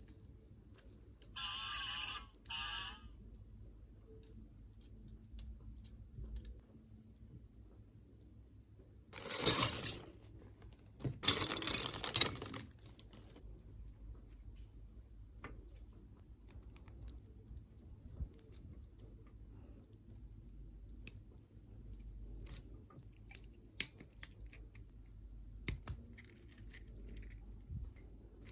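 Hands handling small plastic toy parts and packaging: scattered light clicks and taps, a brief squeak twice near the start, and two louder rustling bursts about ten and twelve seconds in.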